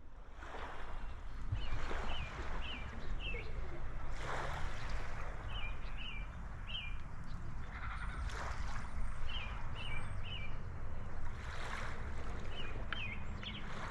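Small waves washing on the shore, surging every few seconds over a steady wash. A bird calls through it in short runs of three or four quick chirps.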